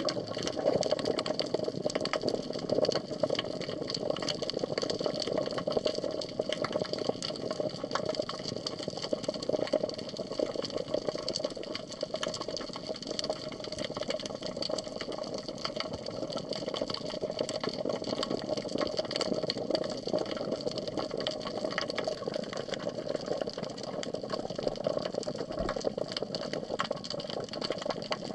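Underwater ambience picked up by a submerged camera: a steady, muffled water rush with a dense, irregular crackle of fine clicks throughout.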